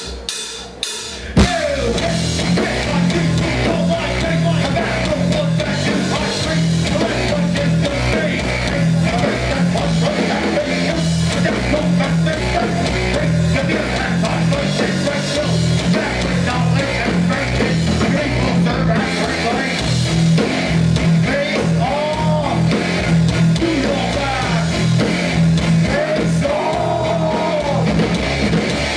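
Hardcore band playing live, loud and steady: distorted electric guitars, bass and pounding drums. It kicks in after a few opening drum hits in the first second or so.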